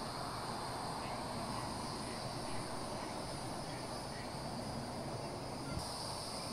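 Night insects, crickets, chirring steadily in two high bands that grow louder near the end, over a low, even background noise.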